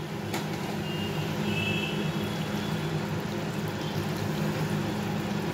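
Hot water poured into a kadai of potato and taro curry, over a steady low hum.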